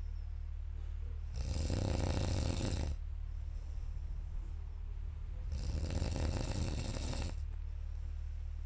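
A sleeping person snoring loudly: two long, rattling snores, the first starting about a second and a half in and the second about five and a half seconds in.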